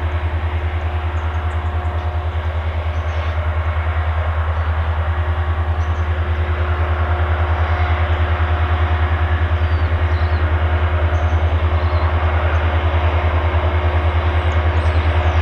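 Diesel locomotives hauling an empty grain train on approach: a steady low engine drone with a fast even pulse and a fainter steady hum above it, slowly growing louder.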